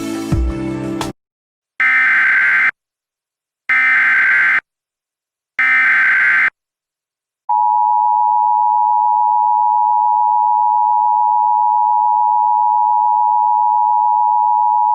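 Music cuts off about a second in. Then come three short, identical bursts of Emergency Alert System SAME header data, a harsh warbling digital noise, each about a second long and two seconds apart. About two seconds after the last burst, the EAS attention signal begins: a loud, steady two-note tone held for about eight seconds, announcing a severe thunderstorm warning.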